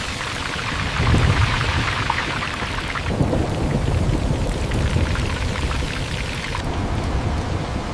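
Steady heavy rain with a low rumble of thunder beneath it; the rain's hiss changes in strength about three seconds in and again near the end.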